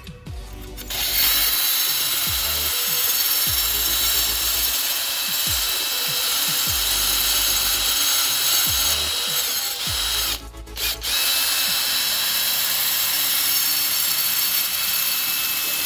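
Drill spinning a wire cup brush against a subwoofer's frame rim, scrubbing off old surround foam and glue: a steady harsh scratching that starts about a second in and breaks off briefly about ten seconds in.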